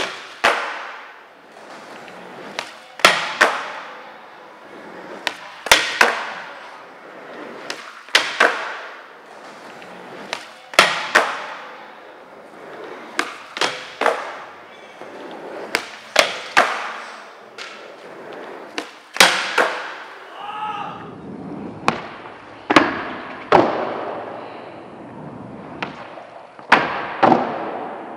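Skateboard tricks on a metal flatbar, repeating about every two and a half seconds: the board pops and smacks onto the rail, grinds along it, then comes down on the concrete with a sharp clack and rolls away. Each impact echoes in the large hall.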